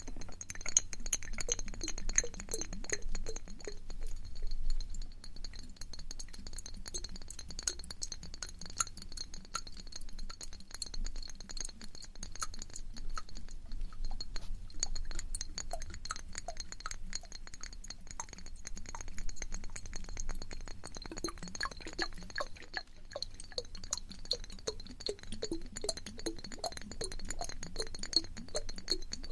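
Close-miked ASMR trigger sounds: a dense run of rapid, light clicking and clinking. A faint steady high tone runs underneath.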